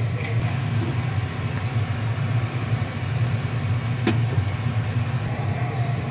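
Steady low machine hum, with one sharp click about four seconds in.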